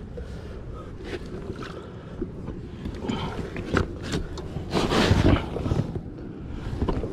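Kayak hull scraping and sliding over the muddy bank as the paddler shifts his weight forward to push off, with knocks and rustling. The loudest scrape comes about five seconds in, as the kayak slides off into the water.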